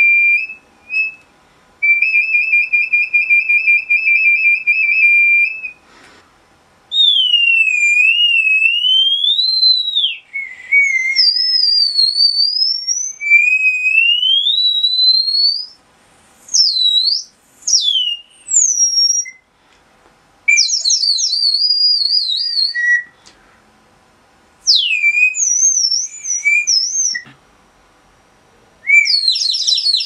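Ceramic bird-shaped water whistle, filled with water, being blown: high bird-like warbling that slides up and down in pitch and breaks into fast trills, in a series of breaths with short pauses. The water inside makes the warble, and the pitch shifts with how hard it is blown.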